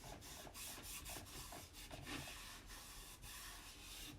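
Rag rubbing finishing wax over a chalk-painted wooden board in quick, repeated scrubbing strokes, faint throughout.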